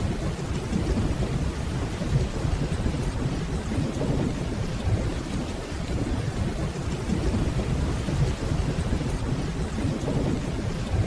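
Steady rain over a continuous low rumble of distant rolling thunder.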